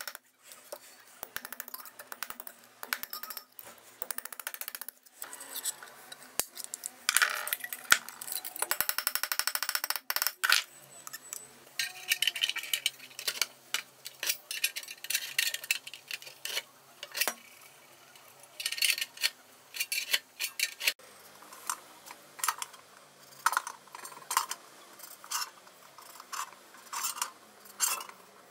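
Stainless steel containers and sheet-metal parts being handled, giving irregular light metallic clinks, taps and scrapes.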